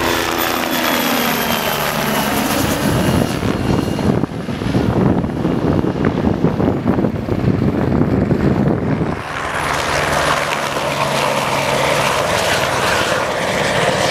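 Turbine helicopters flying low and close. At first a Bo105's rotor and engine tones fall in pitch as it passes. About nine seconds in the sound changes abruptly to a steadier rotor beat and high turbine whine from an AS350 Ecureuil.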